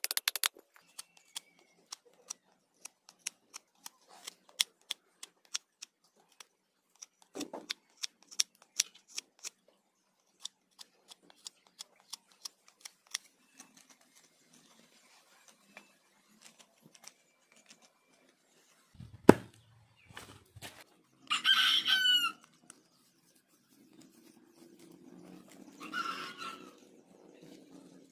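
Knife and chisel cutting a wooden spoon blank: a long run of light, sharp clicks as the blade bites the wood, then one loud thump about two-thirds of the way through. Near the end a rooster crows, then crows again more faintly.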